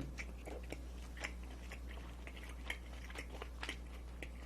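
Close-miked chewing of a mouthful of duck meat: soft, irregular mouth clicks, a few to a second.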